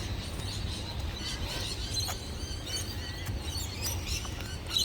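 Birds chirping: many short high calls in quick succession, over a steady low rumble.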